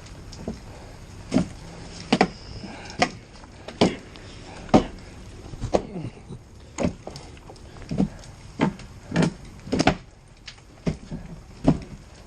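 Irregular knocks and bangs, about one or two a second, some trailing into short falling creaks, as firefighters' hand tools pry and pull at burnt building material during overhaul.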